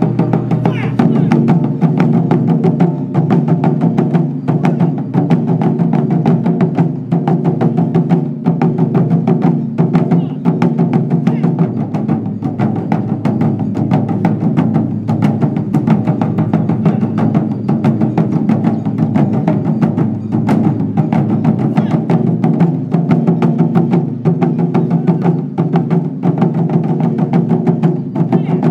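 Japanese taiko ensemble beating a row of chū-daiko barrel drums with wooden bachi sticks, a dense, unbroken run of deep drum strokes.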